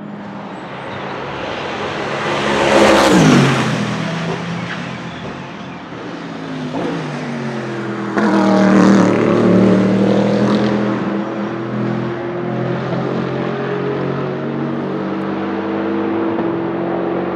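Bentley Continental GT3's 4.0-litre twin-turbo V8 race engine passing at speed, its pitch falling sharply as it goes by about three seconds in. About eight seconds in the sound cuts suddenly to a louder, closer pass whose pitch also drops. The engine then runs on steadily, slowly fading as the car pulls away.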